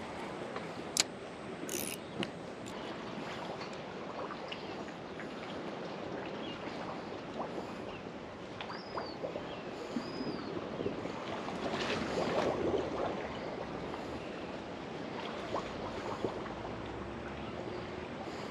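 Water lapping and sloshing. There are a few sharp clicks about a second in, two short high chirps around nine and ten seconds, and a brief louder surge about twelve seconds in.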